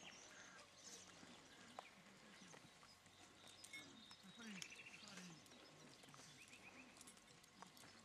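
Near silence: faint outdoor background with distant murmuring voices and a few short high chirps about halfway through.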